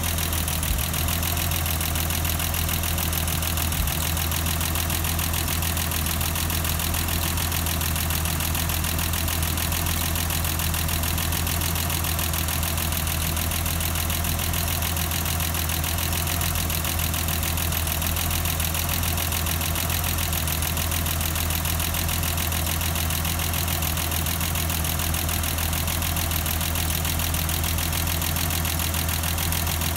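1989 BMW 325i's M20B25 inline-six engine idling steadily.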